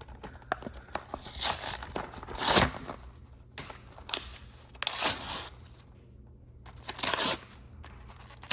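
A diecast car's packaging being torn open and handled: several bursts of tearing and crinkling, the longest about a second in, with small clicks and taps between them.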